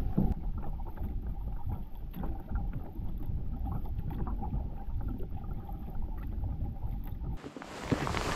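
Muffled sound of a canoe being paddled in light rain, heard through a wet microphone: a low, dull rumble of water and wind with faint splashes and knocks. About seven seconds in it changes abruptly to a brighter hiss.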